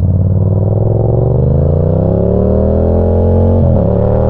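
Yamaha FZ-07's parallel-twin engine pulling hard under acceleration, its pitch climbing steadily, with a brief drop in revs near the end before it climbs again.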